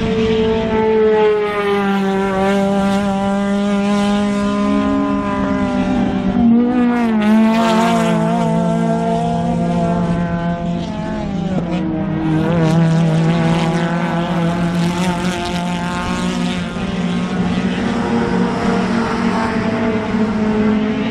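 Race car engines running hard as the cars accelerate and brake on a gravel course, their pitch rising and falling with the revs. More than one engine is heard at once.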